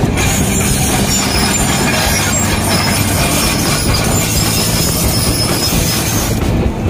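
Hyundai crawler excavator's diesel engine running, with the clank and high squeal of its steel tracks as it travels over crushed stone.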